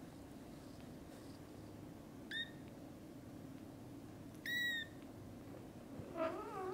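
Very young kitten mewing: two high, thin mews, a short one about two seconds in and a longer, slightly falling one about four and a half seconds in. A lower, wavering cat call follows near the end.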